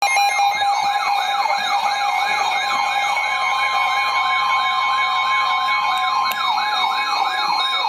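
Electronic alert siren yelping about three times a second, with a steady two-tone alert signal sounding underneath. It is the kind of attention tone that opens an Emergency Alert System warning.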